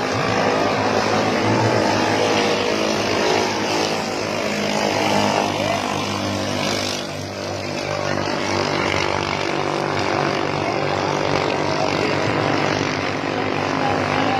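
Racing ketinting longtail boat engines running together in a steady, overlapping drone.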